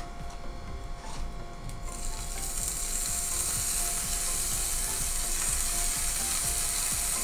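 A few clicks and scrapes of a wooden spatula pressing a tortilla wrap in a nonstick frying pan. About two seconds in, a steady high sizzle starts as the wrap toasts in the hot pan.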